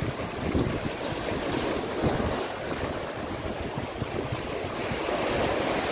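Sea waves breaking and washing over shore rocks, with wind gusting on the microphone.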